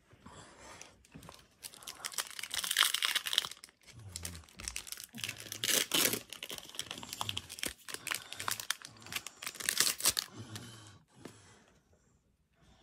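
Foil Pokémon booster pack wrapper being torn open and crinkled by hand, in three spells of crinkling with short pauses between.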